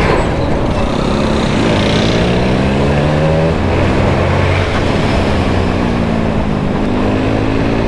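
Bajaj Avenger 150's single-cylinder engine pulling the bike along, its pitch rising, dropping sharply about three and a half seconds in, then rising again, over heavy wind and road rumble on the microphone.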